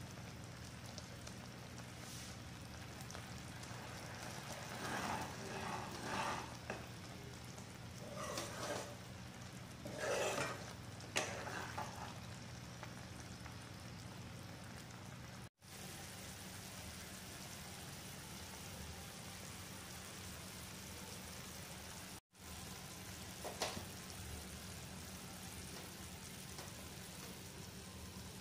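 Sugar syrup boiling hard around chhena cubes in a pan, a steady bubbling hiss. A few louder noises come between about 5 and 12 seconds in.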